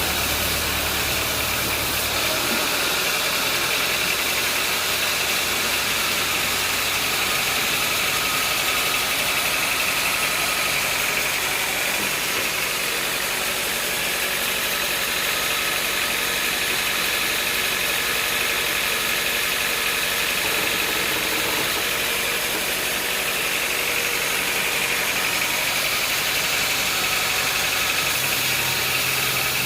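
Sawmill machinery running steadily: an engine with a continuous hiss over it. Its low hum shifts about two seconds in and again near the end.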